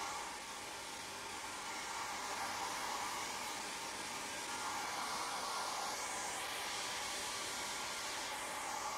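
A steady, high-pitched rushing hiss, with faint sweeps in it near the end.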